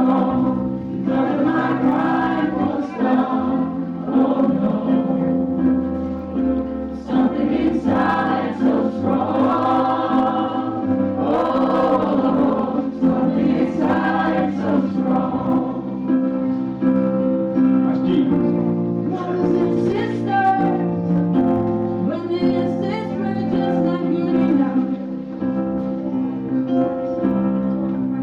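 Music with choral singing: several voices holding and moving between sustained notes over a steady instrumental backing.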